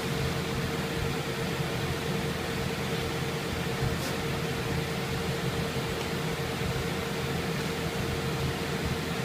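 Steady room tone of a large hall: a low rumble and hiss with a constant hum, and a faint tick about four seconds in.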